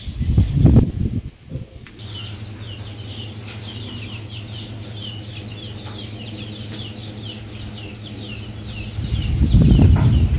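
Small birds chirping: a steady run of many short, quick calls. There are loud bursts of low rumble in the first second or so and again near the end.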